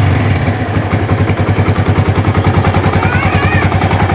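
Yamaha Vixion's single-cylinder four-stroke engine idling with an even pulsing beat, about nine or ten firings a second. It settles from a slightly faster, smoother note in the first half-second. With its new cam chain tensioner roller and replacement valves it holds a steady idle.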